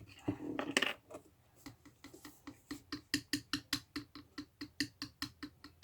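Rapid, evenly spaced squelchy clicks, about five a second, as a bottle of Elmer's glue is squeezed over and over to fill a half-cup measure. A short rustling sound comes first.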